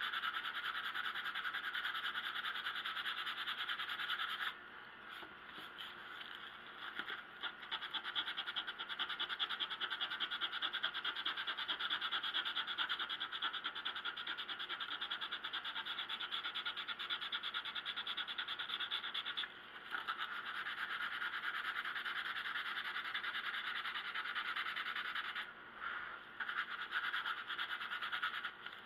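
Sandpaper rubbed back and forth by hand over wood filler in a wooden radio cabinet's veneer, sanding the patch smooth: a steady, rapid scratching that stops briefly a few times.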